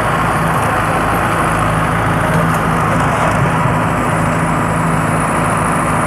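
Two Mahindra Arjun 555 tractors' diesel engines running steadily under load as they pull one two-bottom mouldboard plough in tandem through deep soil.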